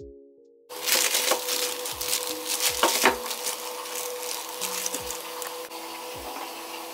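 Plastic produce bag of potatoes crinkling and rustling as it is handled, starting sharply about a second in and busiest over the next two seconds, over background music with a steady bass beat.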